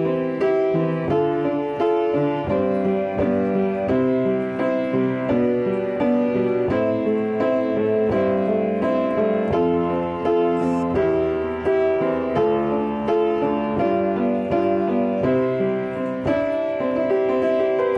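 Solo piano playing a ballad accompaniment arrangement: chords and flowing notes, with no voice.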